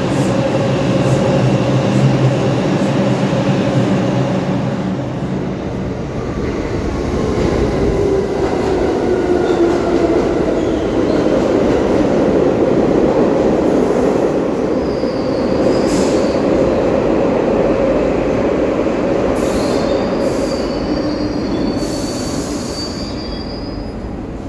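New York City subway trains: a (2) express train of R142 cars runs through on the express track while a (1) local train of R62A cars pulls into the station, its motor whine falling in pitch as it brakes. High-pitched wheel and brake squeals come twice in the second half as the local slows to a stop at the platform.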